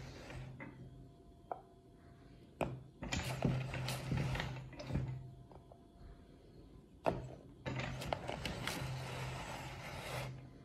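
Hand-cranked metal meat grinder being turned in two spells of a few seconds each: a grinding mechanical run of the auger with sharp clicks, separated by a quieter pause.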